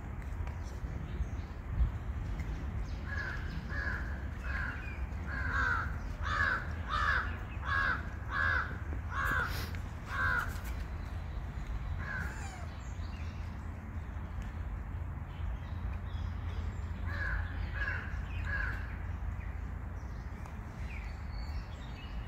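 A crow cawing: a run of about ten caws a little over half a second apart, then a single caw, and later three more, over a steady low background rumble.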